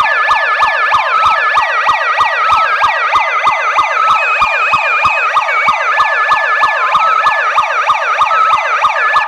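Western Safety 10-watt handheld megaphone playing its built-in siren alarm and its electronic music tune together through the horn: loud, rapid whooping sweeps about three a second, with a beeping melody of held notes stepping between pitches over them.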